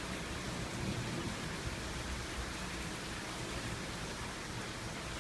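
Rain falling steadily during a thunderstorm, an even hiss with no thunderclap.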